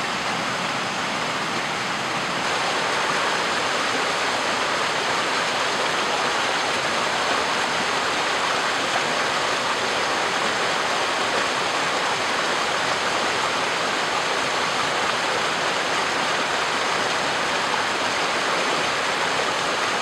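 Steady rushing of a shallow forest stream running past rocks.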